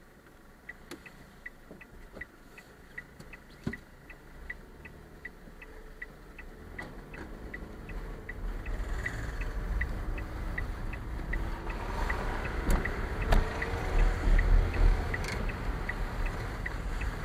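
Car's turn-signal indicator ticking steadily, about three ticks a second. Under it the car's engine and tyre rumble build as it pulls away over the level crossing, with a couple of knocks about thirteen seconds in.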